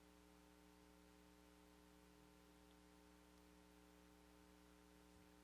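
Near silence: a faint steady electrical hum under room tone.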